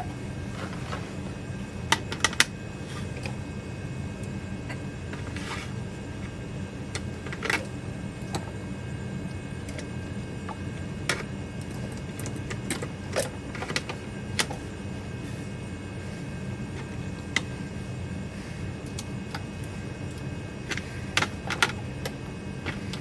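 Scattered light clicks and taps of small parts being handled as model-train roller stands are set under the wheels on the track, over a steady low background hum.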